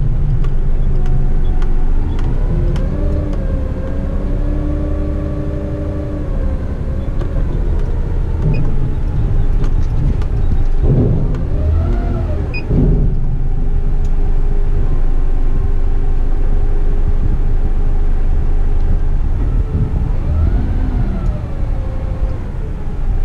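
Isuzu front-lift rubbish truck running under hydraulic load as its forks lift a bin over the cab: a steady engine rumble with a pump whine that rises and falls in pitch several times as the joystick is worked.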